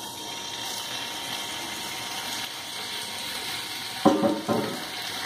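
Raw boneless chicken pieces sizzling steadily in hot oil in a frying pan, with a short louder sound about four seconds in.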